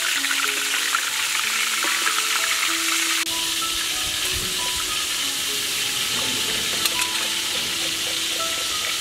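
Black fish frying in hot oil in a wok, a steady sizzle. About three seconds in, the crackling gives way to a smoother, more even hiss.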